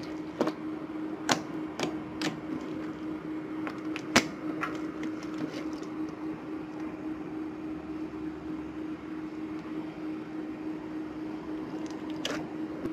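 Orange glue slime being poked, squeezed and stretched by hand: several sharp wet clicks and pops in the first five seconds, then quieter stretching with one more pop near the end, over a steady low hum.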